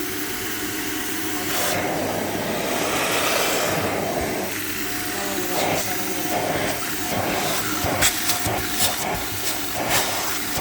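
Kärcher spray-extraction carpet and upholstery cleaner running, its suction motor giving a steady hissing rush. About halfway in it turns choppy, with short sucking pulses and a few sharp clicks as the nozzle works over the car upholstery.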